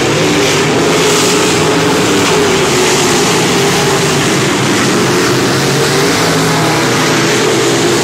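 A pack of dirt-track modified race cars' V8 engines running hard around the track, several engine notes overlapping in one loud, steady din.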